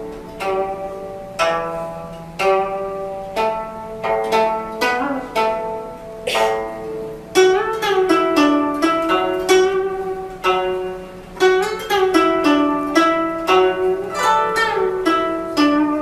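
Solo guzheng (Chinese zither) being plucked: single ringing notes, some bent in pitch by pressing the strings, quickening about halfway through into a run of rapid plucked notes.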